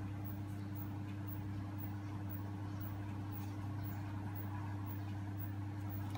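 A steady low hum, unchanging throughout, with no other clear sound over it.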